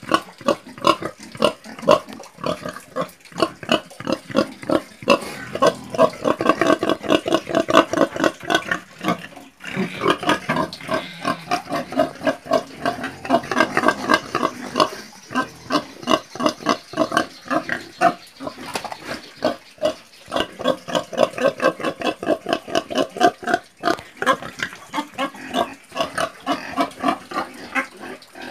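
Domestic pigs grunting: a rapid run of short grunts, several a second, with a brief break about nine seconds in.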